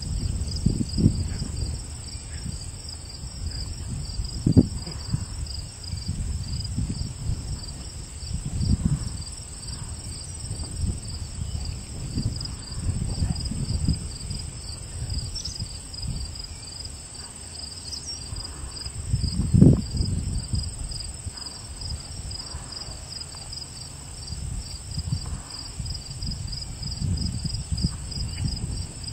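Crickets chirping in a steady, fast-pulsing trill, under a gusty low rumble of wind on the microphone that surges twice, a few seconds in and about two-thirds of the way through.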